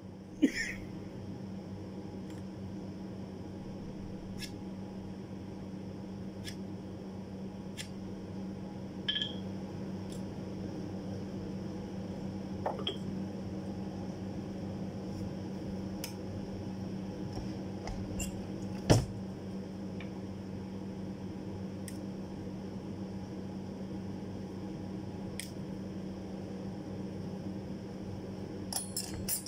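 A steady low hum, broken by a few scattered sharp metallic clicks and clinks as a steel rule blade and a hand rule-bending tool are handled. The loudest click comes about two-thirds of the way in, and a quick run of clicks comes near the end.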